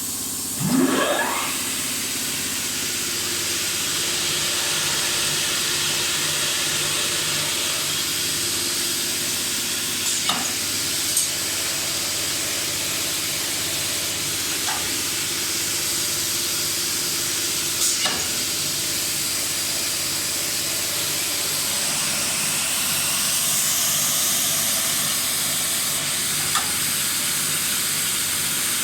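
Cross-cut saw with an underslung blade running steadily with a constant hiss and hum. A brief rising whine comes about a second in, and a few short knocks follow later.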